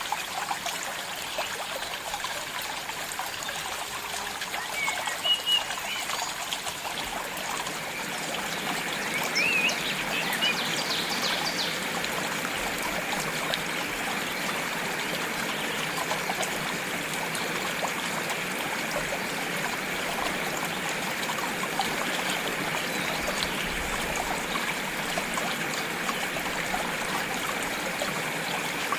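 Stream water trickling and babbling steadily, with a few short high chirps, likely birds, about a third of the way in.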